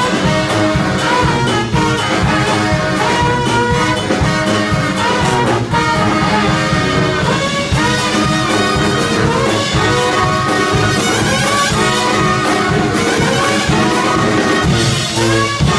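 Live brass band playing an upbeat tune: trombone, trumpet, saxophones and sousaphone over a drum kit, with horn notes that bend and slide and a steady drum beat.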